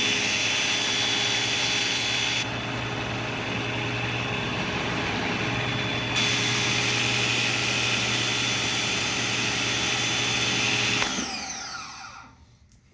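Greenworks 1700 psi electric pressure washer running steadily, its motor hum under a high hiss of spraying water. The hiss eases for a few seconds partway through, then returns, and about eleven seconds in the motor stops and winds down.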